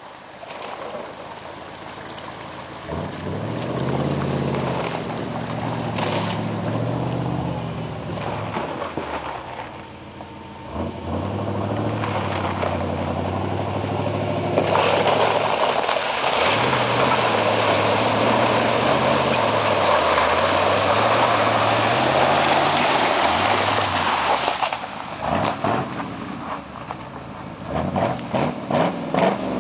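1978 Ford F-250's 351M V8 revving up and down over and over as the truck spins its tyres through mud. A loud rushing noise joins for about ten seconds in the middle, and a few sharp knocks come near the end.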